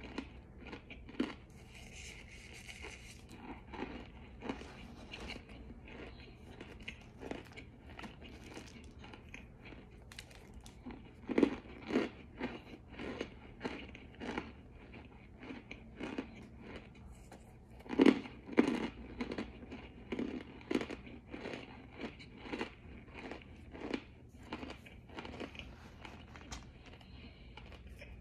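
Close-up mouth crunching and chewing of pressed cornstarch, with irregular crisp crunches that come loudest in two clusters, about eleven and eighteen seconds in.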